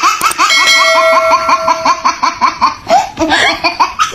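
A cartoon baby's giggling: a fast run of short, high, upward-gliding laughs, about six or seven a second. A held chime-like tone sounds under it from about half a second in until two seconds in.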